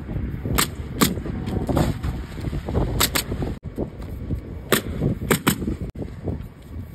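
Pneumatic roofing nailer firing nails into asphalt shingles: about seven sharp shots at uneven intervals, some in quick pairs. Wind rumbles on the microphone throughout.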